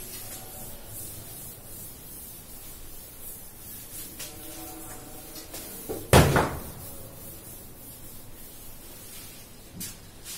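Chalkboard being wiped clean with a duster, with one sharp, loud thump about six seconds in.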